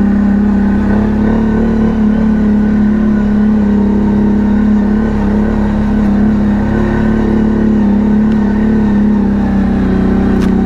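ATV engine running at a steady pace, its pitch holding nearly constant throughout, with a brief click near the end.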